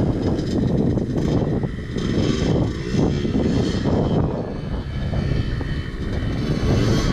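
Off-road motorcycle engine running steadily and loudly, with the pitch rising briefly now and then.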